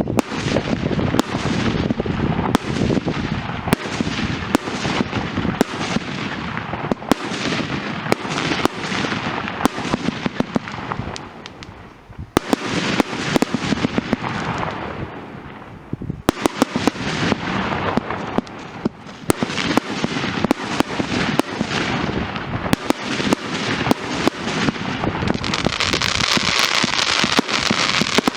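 Fireworks going off in a rapid, continuous run of pops and bangs, easing briefly about twelve and sixteen seconds in. Near the end a dense hiss joins the bangs.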